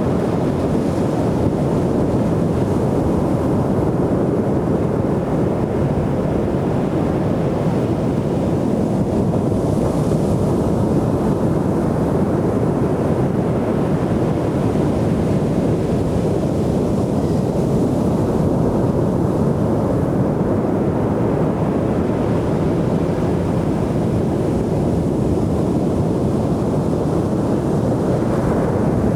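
Ocean surf breaking on a beach: a steady low rush of sound with no distinct single wave crashes standing out.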